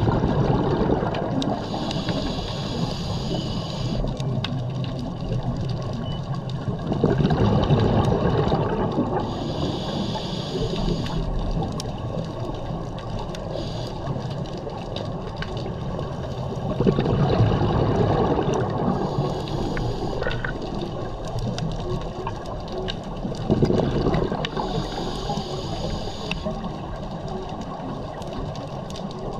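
A scuba diver breathing through a regulator underwater: a hiss on each inhale, then a gurgling rush of exhaled bubbles, in slow cycles about every seven to eight seconds.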